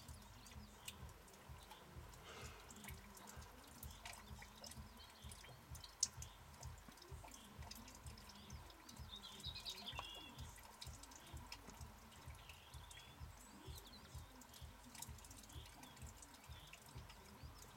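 Faint, irregular dripping and ticking, like wet snow and meltwater falling in drops, with a brief bird chirp about ten seconds in. The sound is otherwise near silent.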